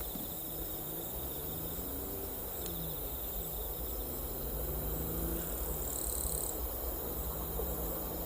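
Insects chirping steadily on a summer night, with a low rumble and a faint wavering hum underneath.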